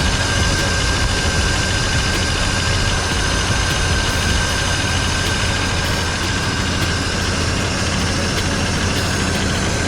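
1989 GMC Sierra pickup engine running steadily, with a constant high-pitched whine over the low engine hum; the owner suspects a loose pulley on the belt drive is making the noise.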